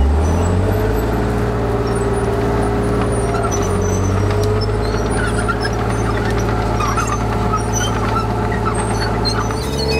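Chieftain tank's Leyland L60 two-stroke multi-fuel engine running loud and steady as the tank drives and turns. Its note rises at the start, dips a few seconds in, and rises again near the end.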